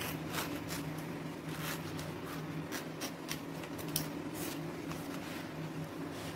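Heat-wilted banana leaf being cut with a knife and handled, a run of short crisp rustles and scrapes against a wooden board. A steady low hum runs underneath.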